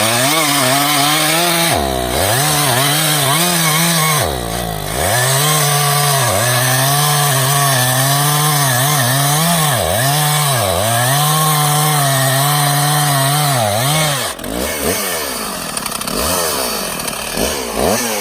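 Stihl two-stroke chainsaw running at full throttle while cutting black locust logs, its pitch dipping again and again as the chain bogs into the wood. After about fourteen seconds the level drops and the saw revs up and down.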